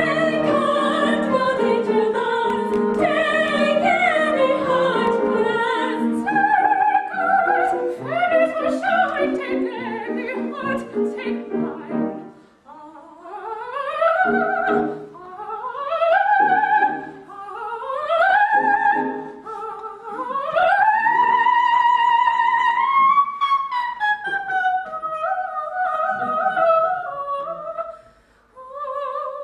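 Women singing an operetta number in classical, operatic style. For the first twelve seconds several voices sing together. Then, after a brief break, one soprano carries on alone in phrases that slide upward.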